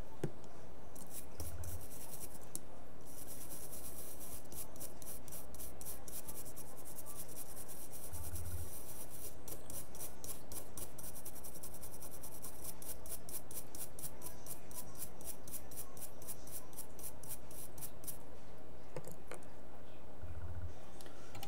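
Softened toothbrush scrubbing an iPhone 6 logic board wet with isopropyl alcohol to clean it after soldering. The strokes are fast and scratchy in a quick back-and-forth rhythm, with a short pause a few seconds in, and they stop near the end.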